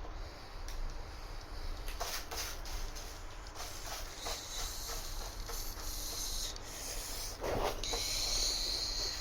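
Rubbing and scraping noises with scattered clicks and a louder knock about three-quarters of the way through, and a high hiss that comes in around the middle and again near the end.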